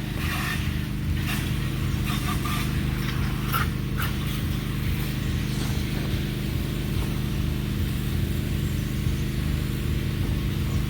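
A steady low machine hum, like an engine running nearby, holds at one level throughout. Light rustling and scraping of vines and soil comes over it in the first few seconds.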